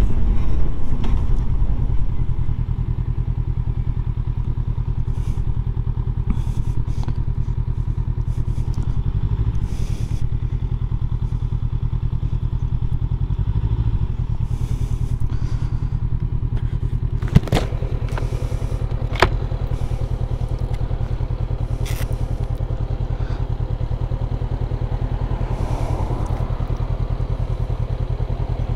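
Honda CB500X's parallel-twin engine running steadily, with two sharp clicks a couple of seconds apart about two thirds of the way through.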